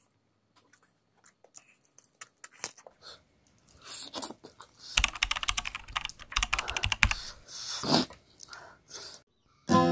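Close-up eating sounds of a person sucking and chewing chicken by hand: wet lip smacks and mouth clicks, sparse at first and densest in the middle.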